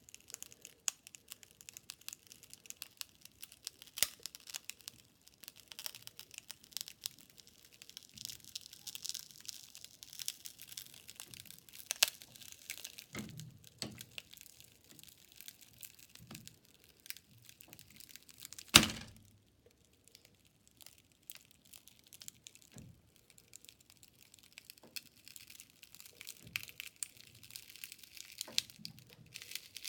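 A smartphone being crushed in a press: its glass screen and casing crackle and snap almost continuously, with one much louder crack a little past the middle.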